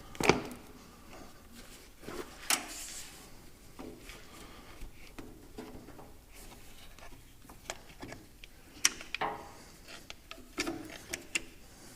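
Intermittent clicks, taps and short rubbing sounds of small objects being handled up close, with the sharpest clicks about a third of a second in, near the 2.5-second mark, and near the end.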